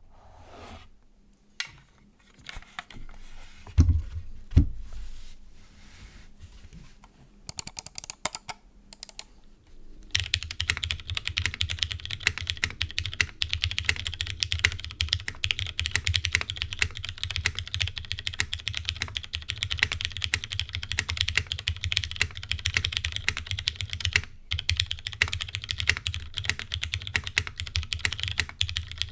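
Fast, continuous typing on a Noxary 280 mechanical keyboard with Cherry MX Brown switches, starting about a third of the way in. Before that there are scattered clicks and two low thumps.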